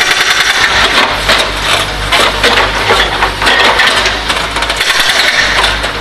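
Backhoe-mounted hydraulic breaker hammering into packed soil and block paving: a fast, even run of blows, about eight a second, for the first second, then uneven knocks and crunching with the machine's diesel engine running louder underneath.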